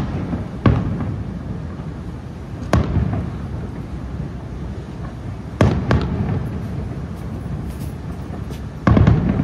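Aerial firework shells bursting: about six sharp bangs at uneven intervals, a close pair just before the six-second mark and a loud cluster near the end, each followed by a rolling low rumble.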